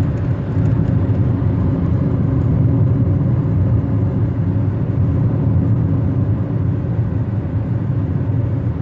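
Steady road and engine rumble of a car driving at speed, heard from inside the cabin.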